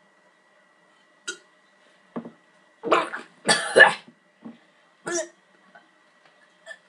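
A boy coughing and gagging over a trash can after chugging pickle-jar brine, the sour juice making him retch. Quiet at first, then a string of short harsh coughs and gags, the loudest a pair about three and a half seconds in.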